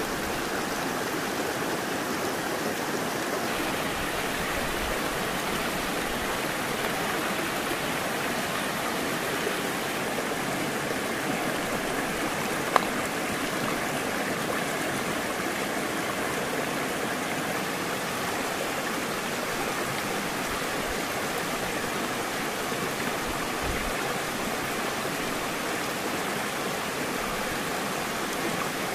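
Shallow river rushing steadily over rocks. A single sharp click sounds about halfway through.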